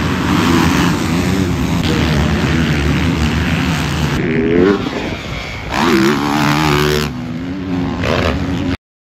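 Motocross dirt bike engines revving hard on a track, the pitch climbing and dropping as the throttle opens and closes. The sound changes abruptly a few times and cuts off suddenly near the end.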